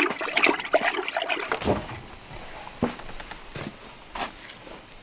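Water sloshing and splashing in a plastic pail as clothing is stirred with a stick, busy for about a second and a half and then settling, with a few soft knocks afterwards.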